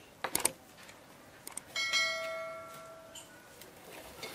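A few light clicks, then about two seconds in a metal dish is struck once and rings out, fading over about a second and a half.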